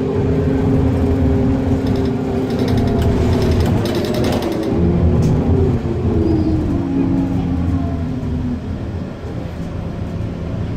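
Irisbus Citelis 12 city bus heard from inside the passenger cabin while under way: engine and drivetrain running with road noise, the engine note shifting in pitch as the bus changes speed partway through, with a few rattles about three to four seconds in.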